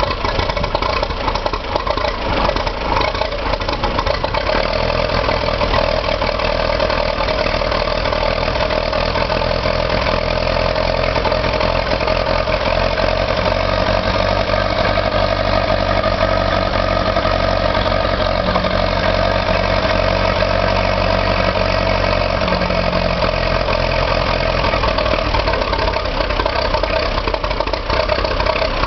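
Ferguson TED20 tractor's four-cylinder vaporising-oil (paraffin) engine running steadily near idle.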